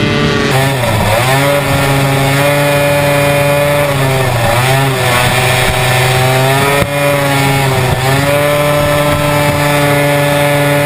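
Racing hovercraft engine heard from on board, running at high revs. It dips briefly in pitch and climbs back three times: about a second in, around four and a half seconds, and around eight seconds.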